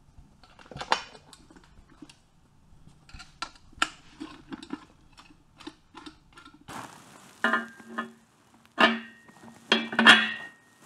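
Metal motorcycle parts and hand tools clinking and clanking as they are handled and fitted. Light clicks and taps come first, then from about seven seconds in louder clanks that ring briefly, like struck metal.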